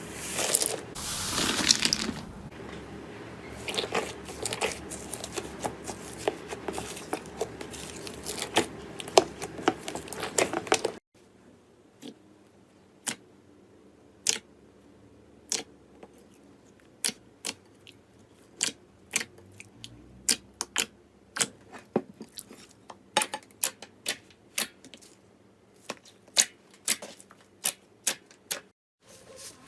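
Slime being squeezed and stretched, giving off many short sharp clicks and pops. They come thick and fast over a steady background noise until about eleven seconds in, then, after a cut, sparser and crisper on a quiet background.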